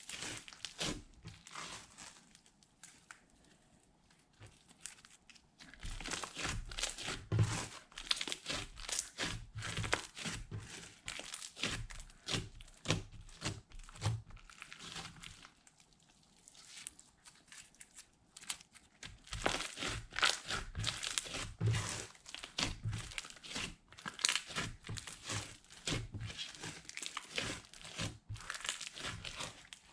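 Hands squishing and kneading glitter slime, making dense crackly popping and clicking in spells, with quieter stretches about 2 to 6 seconds in and again around 16 seconds.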